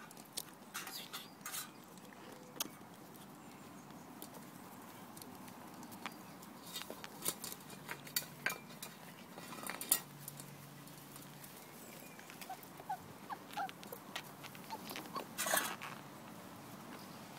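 Labrador puppies scampering and playing: scattered rustles, taps and scuffs of small paws and bodies moving over grass and patio, at irregular times, with a longer rustle about fifteen seconds in. A few faint short high squeaks come in just before it.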